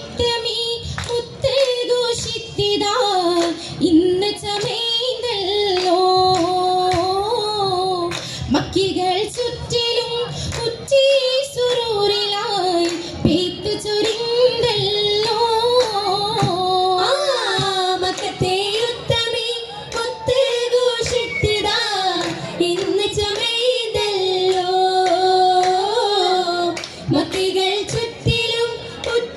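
Oppana: women's voices singing a Mappila song to a steady beat of hand claps from the dancers. The melody runs in long phrases while the claps strike sharply throughout.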